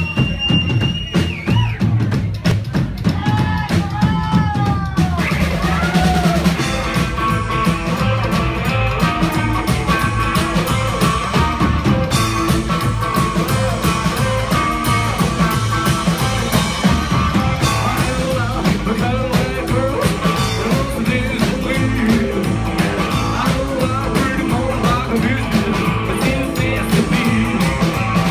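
Rockabilly band playing live: drum kit, upright bass and a Gretsch hollow-body electric guitar, with bending guitar notes in the first few seconds before the full band settles into a steady groove.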